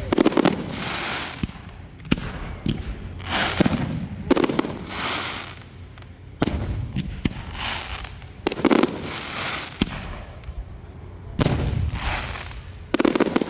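Aerial fireworks bursting overhead: about eight loud bangs, one to three seconds apart, each followed by a hiss lasting about a second.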